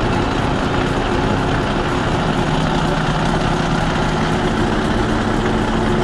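Heavy diesel engine running steadily at a constant speed, with a light, rapid ticking over the top.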